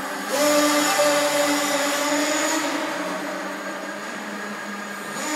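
Small nitro engine of a Kyosho Fazer FXX radio-controlled car running at high revs through its aftermarket exhaust, echoing in a concrete car park. It gets louder about a third of a second in and eases off after about three seconds.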